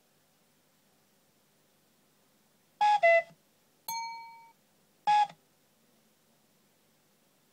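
Short electronic tones from the computer running the image sequence: a brief two-note sound about three seconds in, then a click and a ringing tone that fades over about half a second, then another short tone about five seconds in.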